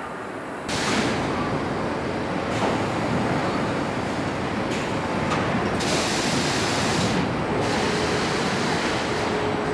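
Factory-floor noise of a truck assembly line: a steady rushing hiss of machinery, louder from just under a second in, with stretches of sharper high hiss coming and going.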